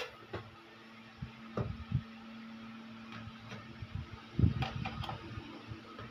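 Hands handling a cordless wireless microphone on the bench: scattered clicks and knocks of its parts, the loudest about four and a half seconds in, over a steady low hum.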